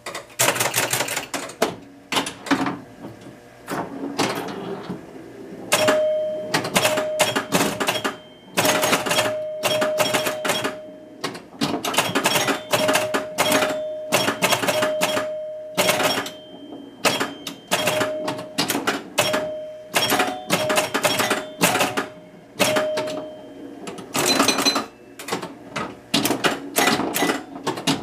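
Williams Fun Fest electromechanical pinball machine in play: rapid clicking and clacking of its score reels, relays and solenoids as points are scored, in quick bursts. Short ringing tones sound again and again with the scoring from about six seconds in until near the end.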